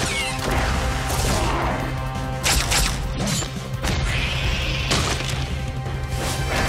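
Cartoon fight sound effects: a few sharp crashing hits and a sweeping whoosh over a driving music score with a heavy bass.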